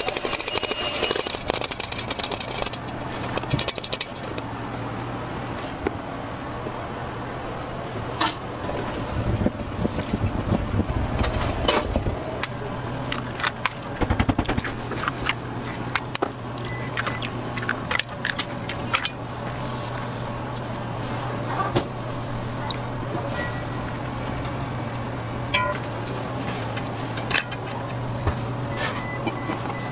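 Food-preparation handling sounds: scattered clicks and knocks against stainless-steel bowls over a steady low hum.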